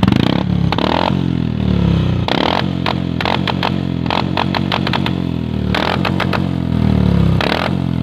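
Modified Royal Enfield Thunderbird's single-cylinder engine revved in about five throttle blips through a chrome aftermarket silencer, each rev rising and falling back. Sharp popping cracks come as it drops off throttle, the fire-and-crackle exhaust beat of the modified bike.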